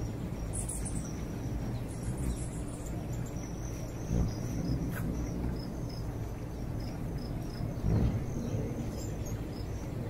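Outdoor ambience: a steady low rumble under a scatter of short, high chirps, with a louder low thump near the end.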